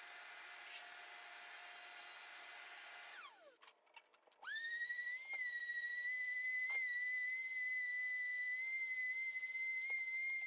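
A power tool falls in pitch as it winds down and stops about three seconds in. After a short break with a few clicks, a power tool spins up to a steady high-pitched whine that holds, dipping briefly a few times as if loaded.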